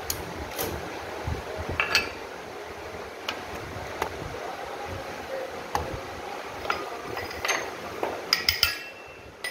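Irregular metal clinks and taps as a turned steel ring and a metal bar are handled in a lathe's four-jaw chuck, with a quick cluster of clinks and brief ringing near the end.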